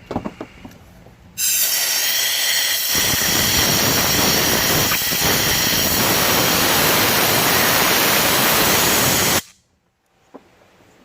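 Compressed-air blow gun blowing drilling chips out of a bolt hole in the engine block: a loud, steady hiss with a faint whistle, starting about a second and a half in and cutting off suddenly near the end.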